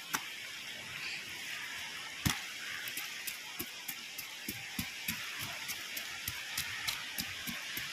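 Cleaver blade scraping the scales off a giant grouper on a wooden board: a run of rasping scrapes with irregular sharp ticks, one much louder about two seconds in.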